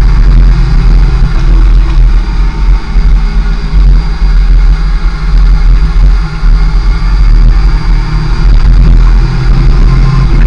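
Kawasaki ZX-6R's inline-four engine running steadily while riding, under heavy wind rumble on the bike-mounted microphone.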